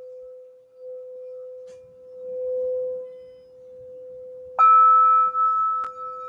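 Crystal singing bowl giving a steady, pure hum as a mallet circles its rim, swelling briefly about two and a half seconds in. A little past halfway, a second, higher-pitched crystal bowl is struck and rings out loudly, then slowly fades.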